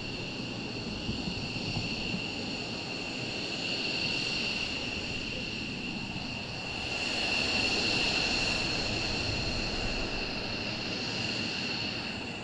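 F-15 fighter jets' engines running at taxi power some distance off: a steady high turbine whine over a jet rumble, swelling and easing, loudest about seven to nine seconds in.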